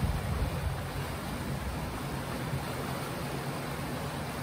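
Steady rushing of a flooded river's turbulent water, with a low rumble of wind on the microphone.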